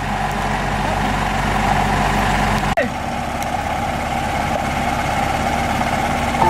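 Excavator engine running steadily. About three seconds in it briefly drops out and the sound shifts, as at a splice.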